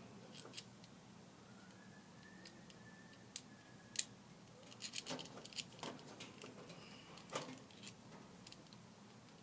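Scattered small metallic clicks and taps, with a cluster of them about five to six seconds in, as a grill's replacement gas valve, its clamp and mounting screw are handled and fitted by hand.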